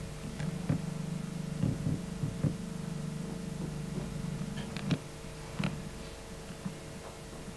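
Low steady hum on the recording with several soft knocks and thuds, the sharpest about five seconds in, as an actor crosses the wooden stage floor and sits down on a bench.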